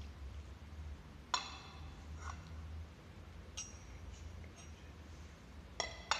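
About five clinks of glass and metal altar vessels, each ringing briefly, the loudest about a second and a half in and two close together near the end: the chalice and cruets being handled as the wine is prepared at the offertory. A faint steady low hum runs underneath.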